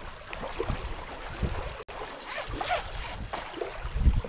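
Whir of a baitcasting reel being cranked while fighting a hooked bass, over wind buffeting the microphone and small waves lapping at the shore.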